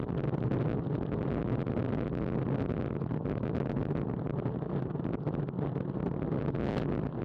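Steady wind buffeting and road rumble on a Garmin VIRB action camera riding on a moving road bicycle, with scattered small ticks and rattles from the ride.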